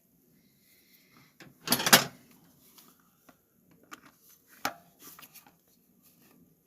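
A few knocks and clatters: one loud rattling burst about two seconds in, then scattered short clicks and knocks.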